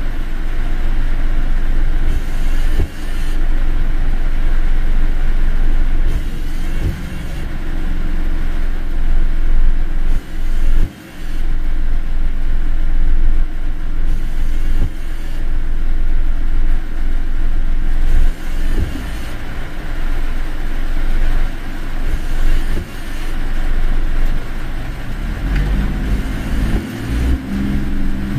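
Steady rumble of a car being driven, engine and tyre noise heard from the car, with a brief lull about eleven seconds in.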